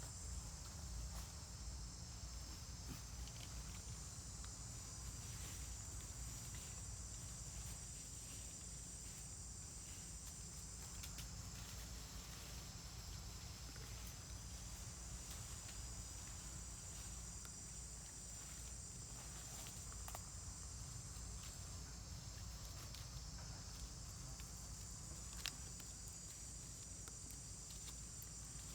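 Steady high-pitched insect chorus over a low rumble, with scattered faint clicks and one sharper click near the end.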